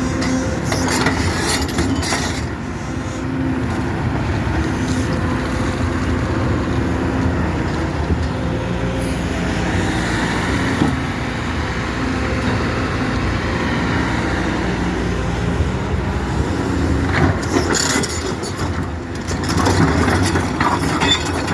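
Kobelco 220 excavator's diesel engine running steadily at work, with bursts of metallic clanking about a second in and again near the end.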